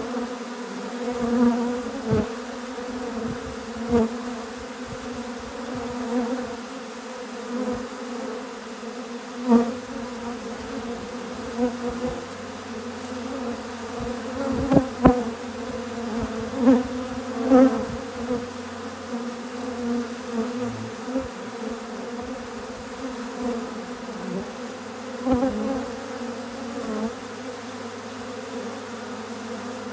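A mass of honeybees buzzing as they crowd over an open feeder, a steady hum on one held pitch with its overtones. Now and then a single bee passing close gives a brief louder buzz, several times over.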